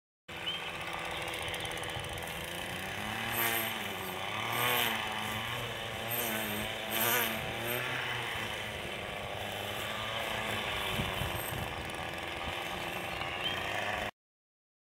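String trimmer's small engine running steadily, revving up and back down three times between about three and seven seconds in, then cutting off suddenly near the end.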